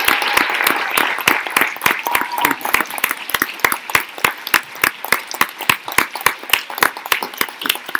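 Audience applauding, dense at first and thinning to fewer, separate claps by the end.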